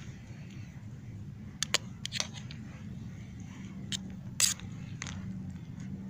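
A utensil knocking and scraping against the inside of a stainless steel camp pot as the stew is stirred: a handful of sharp clicks, the loudest about four and a half seconds in.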